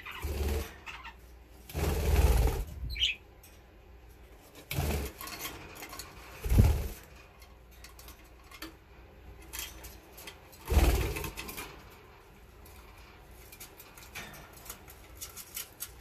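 Budgerigars flapping their wings in about five short bursts as they fly in and land on the perches and cage top, with light clicks between the bursts.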